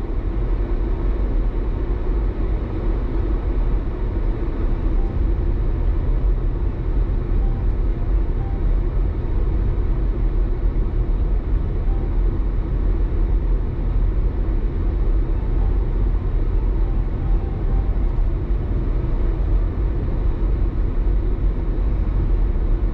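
Steady low rumble of a Jeep's engine and tyres heard from inside the cabin while driving.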